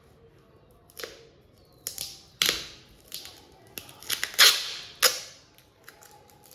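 Camera lens packaging being handled and opened: a series of short, sharp crinkles and scrapes, the loudest about four and a half seconds in.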